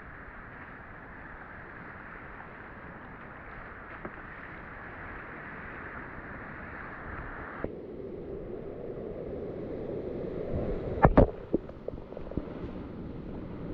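Whitewater rapid rushing around a kayak, a steady noisy wash that turns suddenly duller and deeper about eight seconds in and grows louder. Near the end a few loud sharp knocks and splashes come as the kayak's bow drives into the breaking waves.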